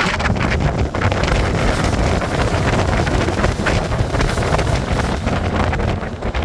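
Loud wind buffeting the microphone from the window of a moving Rhaetian Railway narrow-gauge train, gusting unevenly, with the train's running noise underneath.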